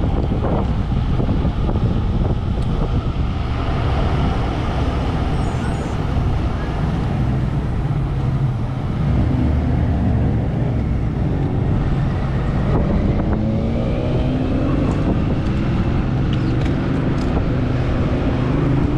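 Wind rushing over a bike-mounted action camera's microphone at cycling speed, with road noise. In the second half a motor vehicle's engine rises steadily in pitch.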